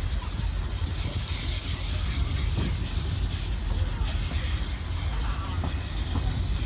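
Steady running noise of a moving passenger train heard from a carriage's open end: a low rumble of wheels on the rails and passing air, with a steady hiss over it.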